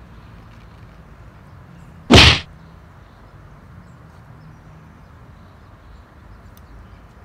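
A single sharp swish about two seconds in, lasting under half a second, from a fishing rod being whipped through a cast.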